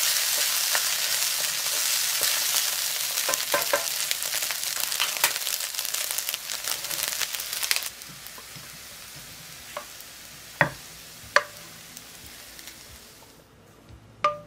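Fried rice sizzling hard in a hot frying pan while a wooden spatula stirs and scrapes it, with many small clicks. About eight seconds in the sizzling stops abruptly, and a few separate sharp knocks follow as the rice is turned out of the pan into a bowl.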